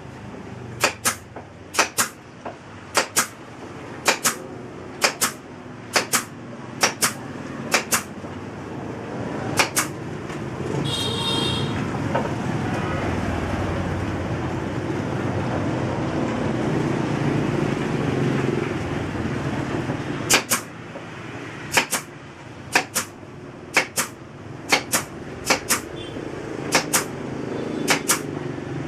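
Sharp knocks of a hammer striking wood, about one blow a second and sometimes two in quick succession. They pause for about ten seconds in the middle, where a steady rushing noise swells and then fades.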